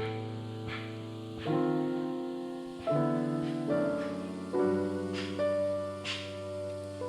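Background piano music: slow, sustained chords struck about every second and a half, each ringing out and fading.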